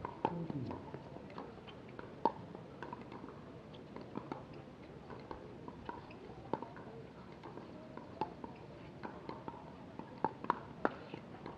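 Pickleball rally: paddles striking the hard plastic ball with a sharp pock every second or two, quickening into a fast volley exchange at the net near the end. Fainter clicks sound between the hits.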